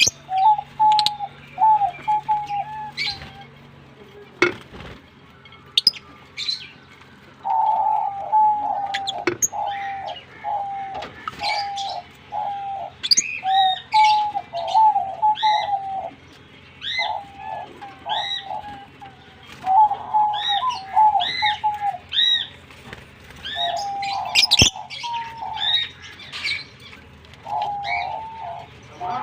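Pet lovebirds chirping: quick high arched chirps over runs of lower, repeated cooing-like notes, with a few sharp clicks in between.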